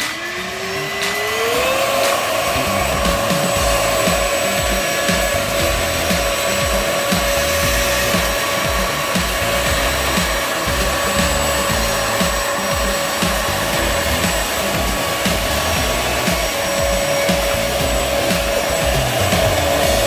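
Jiditech cordless stick vacuum's motor spinning up with a rising whine over the first two seconds, then running steadily. Its bristle brush nozzle scrubs and rubs along a window sill.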